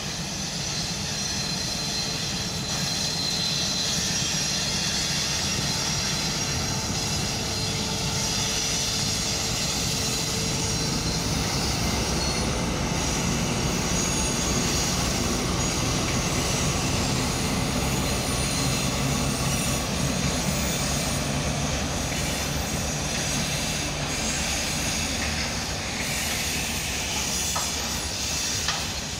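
ChME3 diesel shunting locomotive running steadily as it passes, hauling covered hopper cement wagons that roll by after it. Its six-cylinder diesel engine sets a steady low drone under the noise of the wagons on the rails.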